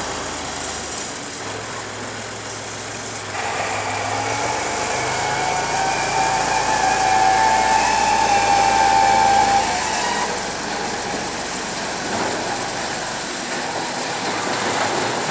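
Diesel engine of a wheel loader working as its bucket is raised. It revs up about three seconds in with a steady whine, then drops back to a lower run about ten seconds in.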